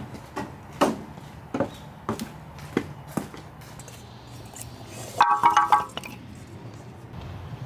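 Footsteps of sandals on the ground at a walking pace. Then, about five seconds in, sumac sticks tipped from a stainless steel bowl clatter against the bowl and into a cast-iron cauldron (gamasot), a brief burst of ringing metallic clinks.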